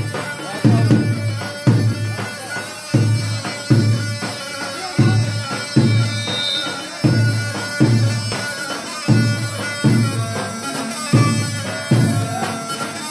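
Dabke music from a large tabl drum and a mijwiz double-reed pipe. The drum strikes heavy, deep beats about once a second, under a continuous, unbroken melody from the mijwiz.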